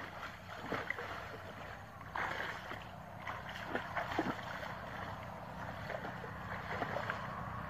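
Water splashing and sloshing as people wade through a shallow canal and drag a fishing net through it, in irregular splashes with a stronger one about two seconds in.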